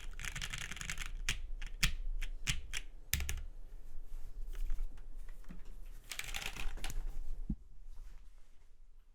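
Typing on a custom mechanical keyboard with lubed Lavender switches, an aluminium plate and GMK keycaps. A quick flurry of keystrokes gives way to separate, spaced strikes. A second short burst of fast typing follows, then the typing trails off near the end.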